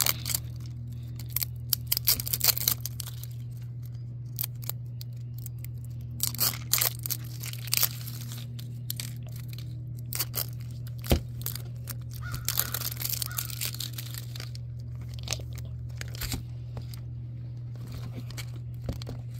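Thin clear plastic wrap being picked and peeled off a hard plastic capsule ball, crinkling and crackling in short irregular spells, with one sharp click about eleven seconds in. A steady low hum runs underneath.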